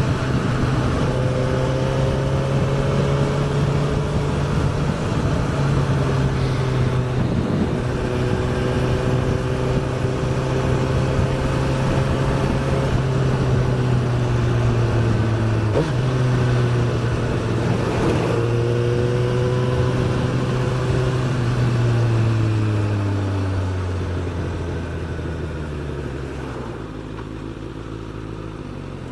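Suzuki GSX-S1000's inline-four engine running at steady cruising revs, with a couple of brief dips as if from gear changes. Near the end the revs fall steadily as the bike slows.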